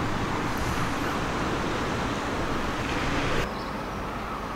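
Steady outdoor background noise, like distant road traffic. About three and a half seconds in it changes abruptly to a quieter, duller hush.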